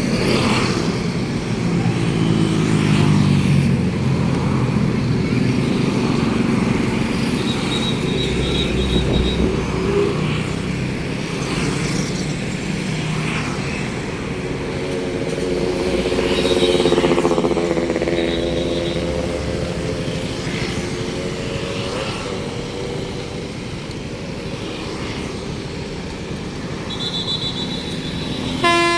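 Roadside traffic: bus and other vehicle engines passing, their pitch rising and falling as they go by, with a couple of short high beeps. Right at the end a bus's multi-note telolet horn starts to play.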